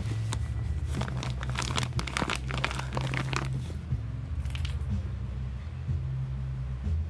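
Crinkling and rustling of a bag as a cat stirs inside it, a dense run of crackles starting about a second in and lasting roughly three seconds, with a few more shortly after, over a steady low hum.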